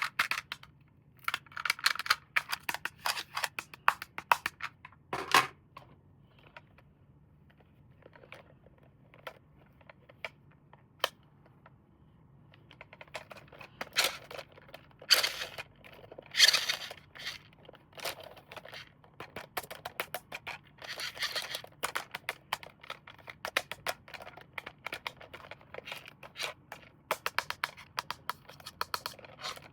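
Hands handling a toy and its packaging: a busy run of clicks, taps and crinkling rustles. It thins out to a few scattered clicks for several seconds midway, then picks up again with louder rustling.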